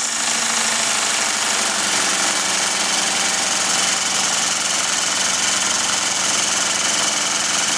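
Craftsman CMCS600 cordless jigsaw with a Bosch T130DG diamond-grit blade cutting through ceramic tile. The motor runs at a steady speed and the blade makes a loud, gritty rasp in the tile.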